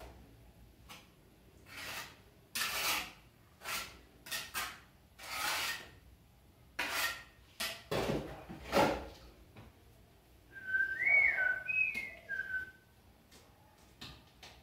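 A trowel scraping and scooping tile mortar in a plastic tray: a series of short rasping strokes, the loudest about eight to nine seconds in. About ten seconds in, someone whistles a short tune of a few rising and falling notes.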